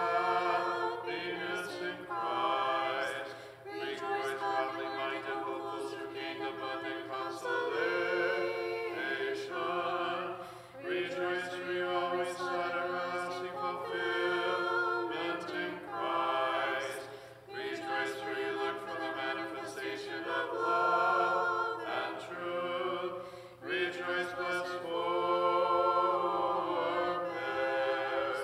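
An a cappella choir singing Orthodox liturgical chant in phrases a few seconds long, with brief breaks between them.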